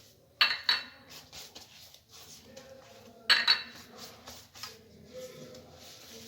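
Kitchen utensil clinking against dishes: two quick sharp clinks about half a second in and two more about three seconds later, with quiet handling noises between.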